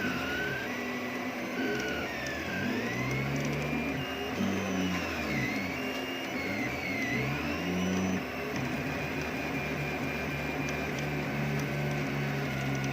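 3D printer's stepper motors whining as the print head moves, the pitch swooping up and down every second or so. About two-thirds of the way through, the tones hold steadier.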